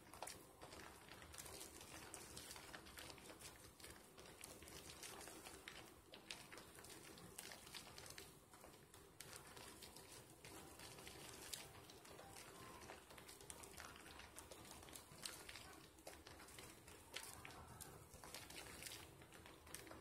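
Faint wet squishing and crackling of thick soap lather as hands rub and squeeze foam worked up from Dove and Caress soap slivers, with many small irregular crackles throughout.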